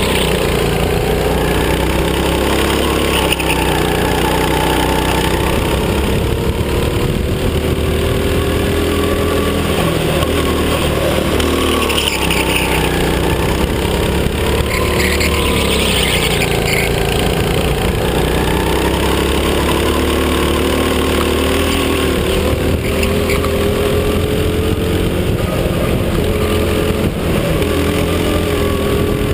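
Go-kart engine running hard, heard from on board, its pitch rising and falling repeatedly as the kart accelerates and slows through the corners.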